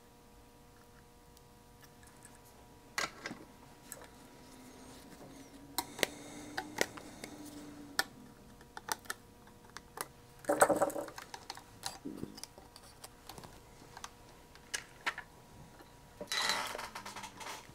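Scattered sharp clicks and light taps of hands fitting components into a circuit board held in a vise, with two brief rustling bursts, one midway and one near the end, over a faint steady hum.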